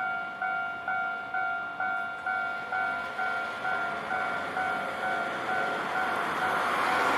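Level-crossing warning bell ringing steadily about twice a second at a Hankai Tramway crossing. Near the end the noise of an approaching tram grows louder under the bell.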